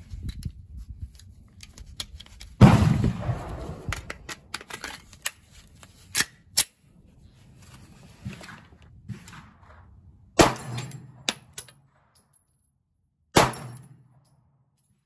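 Handgun shots at a range: about five sharp reports spread a few seconds apart, the loudest about two and a half seconds in with a long ringing tail. Fainter clicks and handling noise fill the gaps between them.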